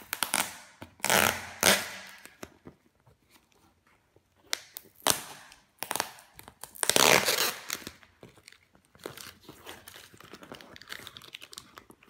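Packing tape being picked at with fingernails and peeled from a cardboard parcel, in several short tearing, crinkling spurts. The loudest spurt comes about seven seconds in, followed by quieter scratching on the cardboard.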